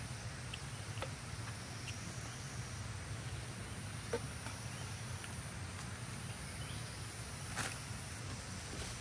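Outdoor background noise with a steady low hum, scattered faint clicks, and one brief louder noise about seven and a half seconds in.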